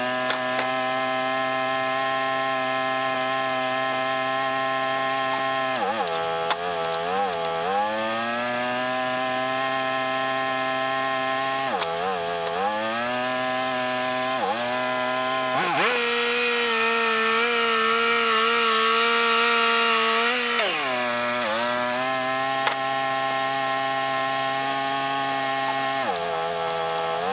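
Wood-Mizer LT35 portable band sawmill running, its band blade cutting a yellow pine log. The engine pitch sags and recovers several times as the load changes, and settles lower with more cutting hiss for a few seconds past the middle.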